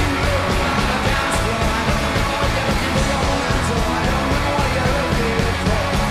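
Live rock band playing loudly: driving drums with distorted electric guitars and bass.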